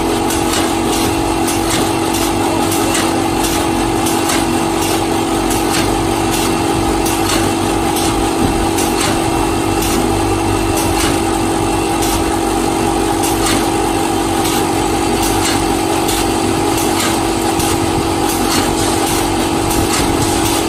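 Coconut-shell charcoal stick extruder running steadily: a loud, even machine drone with a strong steady hum, overlaid by many scattered sharp clicks and knocks.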